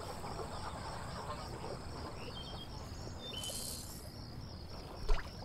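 Marsh ambience: insects trilling in a steady pulse of about four beats a second, with a few short bird chirps. A brief hiss comes about halfway through, and a sharp click near the end.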